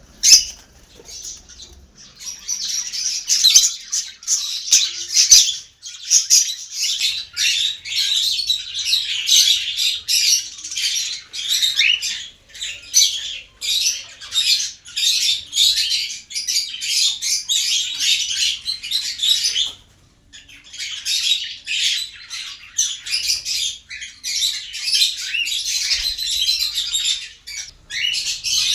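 Many caged pet birds chirping and chattering nonstop in quick, high-pitched calls, breaking off briefly about twenty seconds in.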